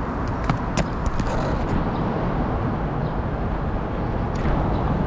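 Steady wind rumble on a small action camera's microphone, with a few light knocks and clicks about half a second to a second in, and again near the end, as the camera is moved about.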